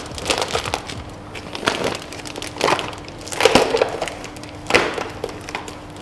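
Plastic fish bag crinkling and crackling in short bursts as it is handled and gathered shut at the top, over a faint steady hum.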